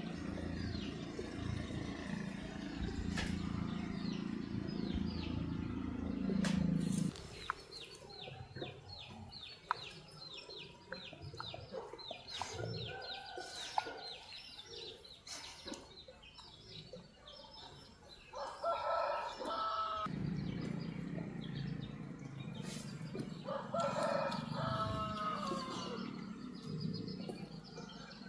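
A rooster crowing, twice in the latter half, with small birds chirping in quick runs of short high notes. A low steady noise underneath stops suddenly about seven seconds in and comes back about twenty seconds in.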